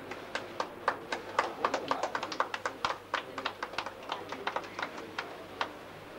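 A small group of people clapping: uneven, separate claps, thickest in the middle, thinning out and stopping about five and a half seconds in.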